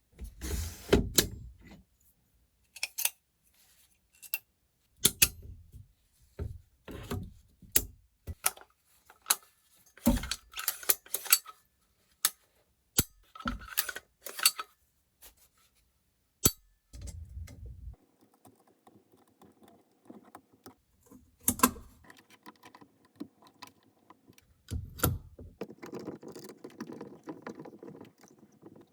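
Metal gun parts clicking, clinking and knocking as they are handled and fitted together during assembly of a rifle, in short clusters separated by pauses. A low hum comes in briefly a few times.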